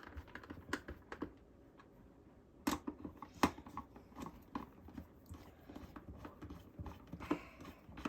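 Irregular small clicks and taps of screws being turned in with a screwdriver, with a couple of sharper knocks about three seconds in.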